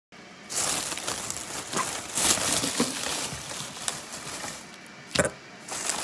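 Plastic shopping bags rustling and crinkling as groceries are handled on a counter, with one sharp knock near the end as an item is set down.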